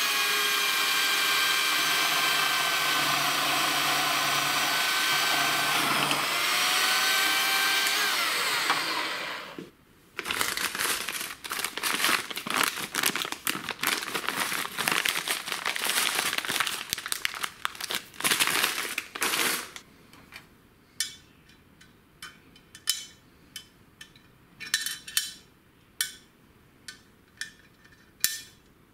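Benchtop drill press motor running steadily for about nine and a half seconds while drilling a hole in a chrome metal part, its pitch dipping briefly about six seconds in. Then a plastic bag of steel blind rivet nuts crinkles and rattles for about ten seconds, followed by scattered small metallic clicks as a rivet nut is fitted into the hole.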